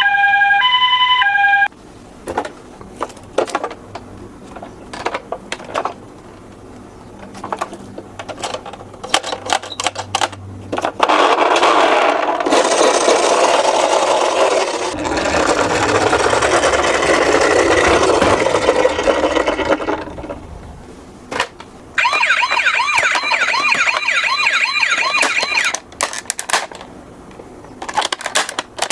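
Toy ambulance's electronic siren alternating between two notes for a moment, then clicks and clatter of plastic toy cars, a long stretch of loud rattling noise as they roll, and a wavering electronic siren for a few seconds near the end.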